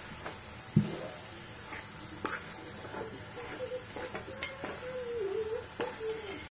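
A metal spoon stirs grated carrot halwa in a metal cooking pot, scraping the pot with several sharp clinks and knocks over a steady hiss. A faint wavering voice-like tone comes and goes in the background.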